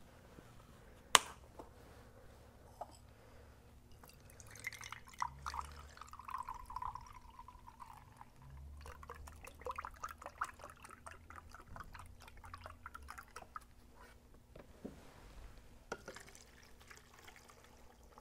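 Chicken broth poured from a carton into a measuring cup, splashing in spells from about four seconds in. A single sharp click comes about a second in.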